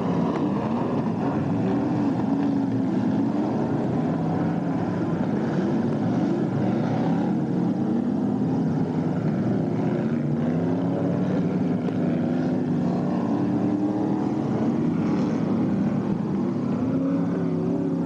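BriSCA F1 stock cars racing, several engines running together with their notes rising and falling and overlapping.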